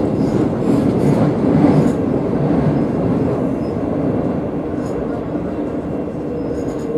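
Inside a Madrid Metro 8400-series train car running between stations: a steady rumble of wheels on the rails and body noise, with a low steady hum underneath and a few light rattles. It gets slightly quieter toward the end.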